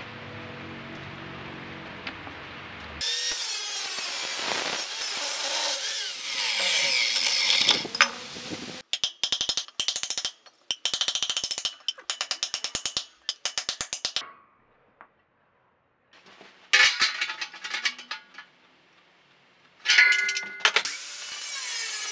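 A run of metalworking sounds: a power tool cutting metal for several seconds, then rapid repeated hammer strikes on a steel tube, a few ringing metal clanks, and an angle grinder running near the end.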